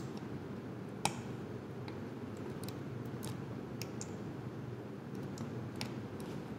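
Scattered light clicks and taps, one sharper about a second in, as a transistor's three leads are worked into the hFE test socket of a Tesca 17702H digital multimeter.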